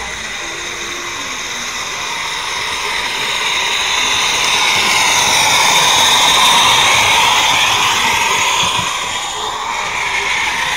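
Miniature train running past on its track, the sound building to a peak about six seconds in and then fading.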